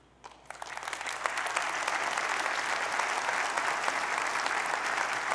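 Audience applauding: the clapping starts about half a second in, builds over the next second and then holds steady.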